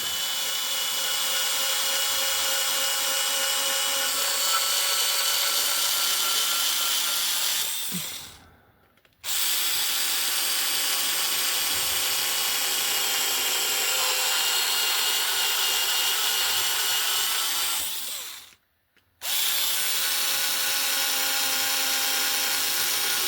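Cordless powered screwdriver fitted with a drill chuck and a 3.3 mm bit, running steadily as it opens out holes in a wagon chassis. It whines in three long runs, winding down and stopping about eight seconds in and again after about eighteen seconds.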